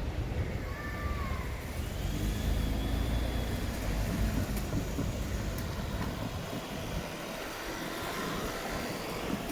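Low rumble of passing traffic that fades away about six seconds in, with a faint gliding squeal about a second in.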